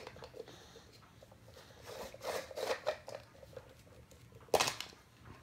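Hands twisting and prying at a hollow plastic toy egg: light scrapes and clicks of plastic on plastic, then one sharp snap near the end as the halves come apart.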